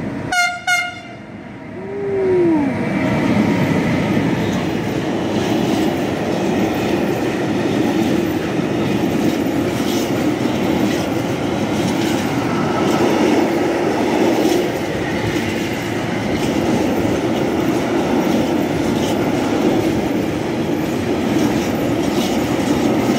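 Electric freight locomotive sounding two short horn toots in reply to people waving from the platform. A brief tone falls in pitch as it passes, then a long train of empty container flat wagons rolls by with a steady rumble of wheels on rail.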